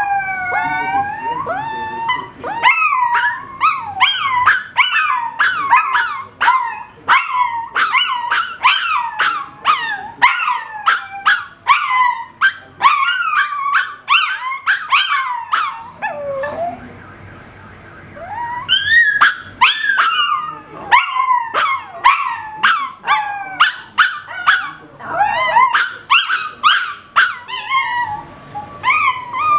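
Miniature pinscher howling along with a car alarm, a dense run of wavering, rising and falling pitched calls that breaks off for about two seconds past the middle before starting again.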